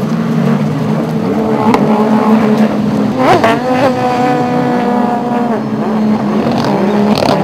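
Racing jet ski (personal watercraft) engines running at high revs. About three seconds in, one engine climbs sharply in pitch and holds a steady high whine for about two seconds.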